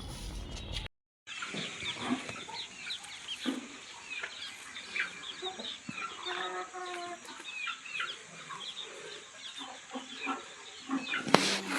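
Parrot Beak Aseel chickens clucking, with many short high chirps and a longer drawn-out call in the middle. The sound drops out briefly about a second in.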